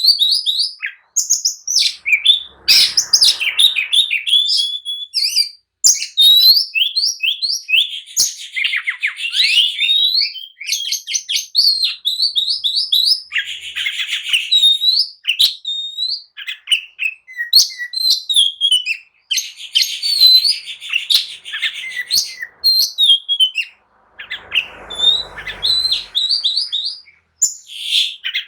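Oriental magpie-robin (kacer) singing a fast, continuous song of varied whistles, chirps and sweeping notes with only brief pauses: loud, aggressive fighting song. Twice, a short rustling noise sounds underneath, near the start and near the end.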